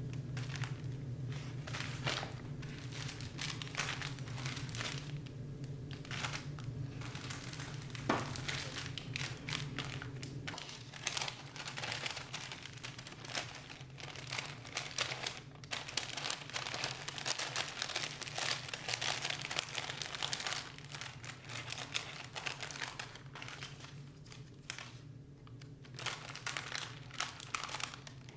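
Packaging being handled while packing orders: irregular crinkling and rustling of paper or plastic wrapping, continuing throughout.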